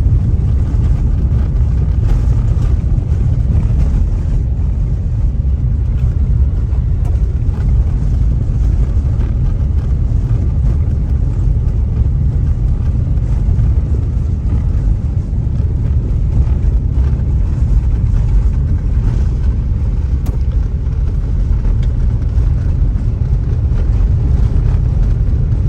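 Car driving along a road, a steady low rumble of engine and tyre noise.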